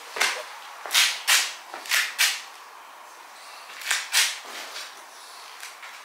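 Short scuffing and rustling noises of a person moving about while holding the camera: a quick run of five in the first two and a half seconds, then two more about four seconds in.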